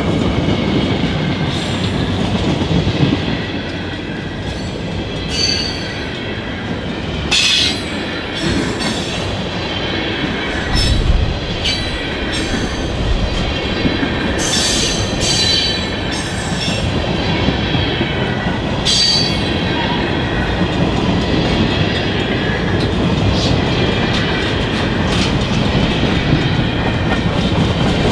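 Freight train cars rolling past close by: a steady rumble and clatter of steel wheels on the rails. Brief high-pitched wheel squeals come a few times, the strongest just before the middle.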